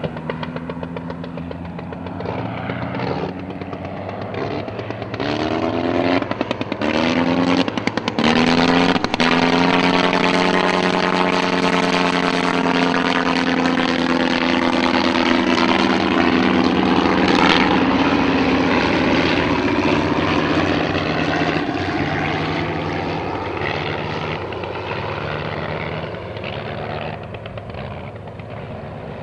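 A Sopwith Camel's original 160 hp Gnome nine-cylinder rotary engine and propeller in flight. The engine note steps and breaks in and out repeatedly, the way a rotary's power is worked by cutting the ignition. It grows louder to a close pass about ten seconds in, then fades as the biplane draws away.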